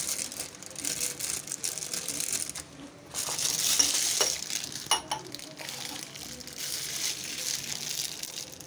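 Clear plastic piping bag filled with whipped cream crinkling and rustling as it is handled and twisted, with a short sharp click about five seconds in.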